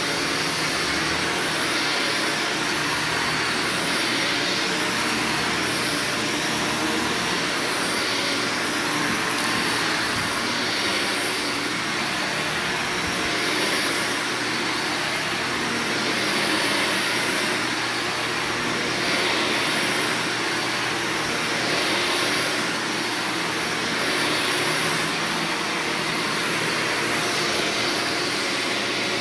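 Upright vacuum cleaner running steadily while pushed back and forth over carpet, its sound swelling a little with each stroke.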